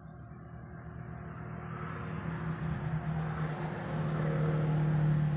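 A motor vehicle's engine rumble with a steady low hum, growing steadily louder as it approaches.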